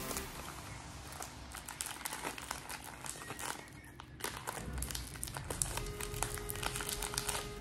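Crinkly plastic snack wrapper being torn open and unwrapped by hand: a dense run of rustling crackles. Background music comes back in over the last couple of seconds.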